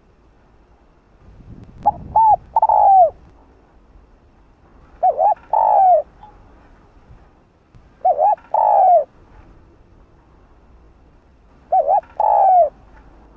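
Spotted dove cooing its song: four calls about three seconds apart, each two quick short coos followed by a longer note that falls away at the end.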